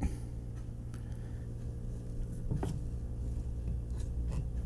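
A few faint, brief taps and clicks from a small die-cast toy car being handled on a table, over a steady low electrical hum.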